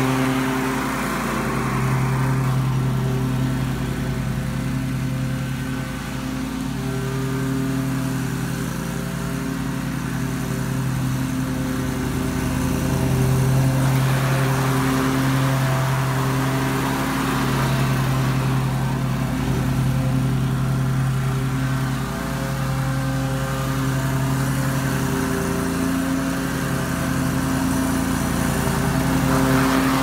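Ferris walk-behind commercial lawn mower's engine running steadily as the mower is pushed along, its level rising and falling slightly.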